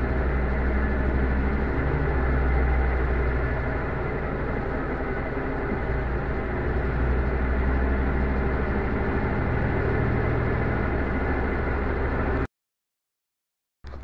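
Little Swan pulsator top-loading washing machine on its spin cycle: a steady motor and drum hum with no knocking or banging, the drum running normally after the repair. The sound cuts off abruptly about twelve seconds in.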